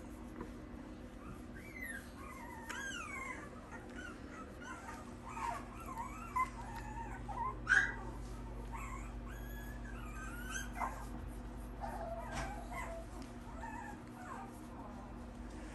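Dog whimpering: a long run of short, high whines that bend up and down in pitch, with a few louder yelps around the middle.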